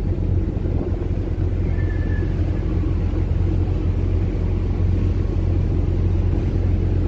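Wind buffeting the microphone on an open ship's bridge wing: a loud, steady low rumble with no breaks.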